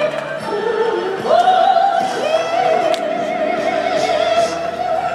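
A Chinese opera singer's high voice, with music: a short lower phrase, then a rising slide about a second in into a long, wavering high note held for most of the rest.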